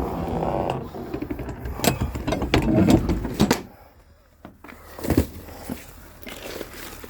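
Firewood being unloaded: irregular thumps and wooden knocks with rustling as bundles are handled and set down, busiest in the first three and a half seconds, then a few more scattered knocks.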